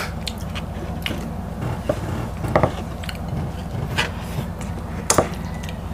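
Close-miked eating sounds: scattered chewing clicks and food being handled, with a sharper click about five seconds in, over a steady low hum.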